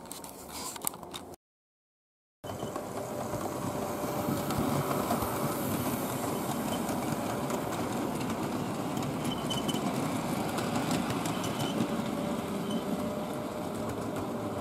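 Model railway goods train running on the layout's track: a steady rumble of wheels on the rails with a faint motor hum and many small rail clicks. It starts about two and a half seconds in, after a few handling clicks and a second of silence.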